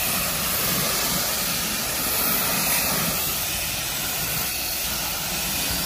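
Pressure-washer wand downstreaming soft-wash solution onto vinyl siding: a steady spray hiss with a low machine drone from the pressure washer beneath it.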